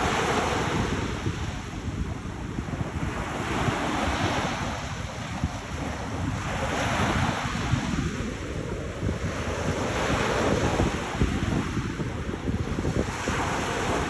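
Small waves breaking and washing up the shore, the surf surging every three to four seconds, with wind buffeting the microphone.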